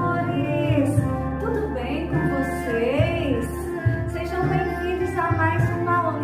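Background music with a sung melody over a steady bass and beat.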